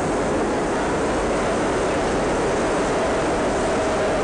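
Subway train running in the station, a loud steady rumble with a faint whining tone joining about three seconds in.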